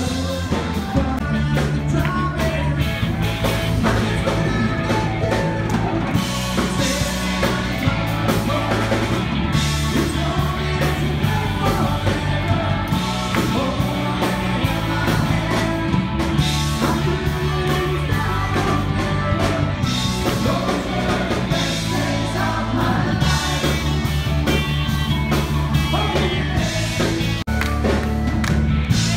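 Live band playing upbeat rock-and-roll dance music with a singer, guitar and a bass line stepping through its notes, continuous and loud.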